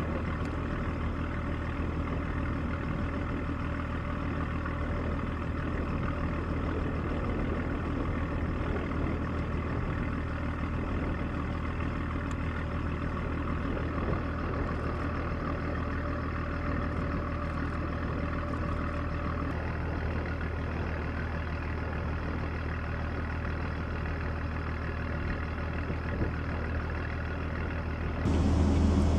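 Steady, even drone of a Lockheed C-130 Hercules's turboprop engines and propellers running, with a deep constant hum; it grows louder about a second before the end.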